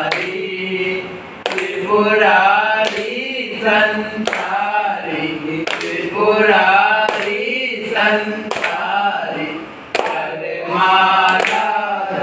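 Voices singing a devotional chant in sung phrases of a second or two, with sharp claps or knocks every second or so.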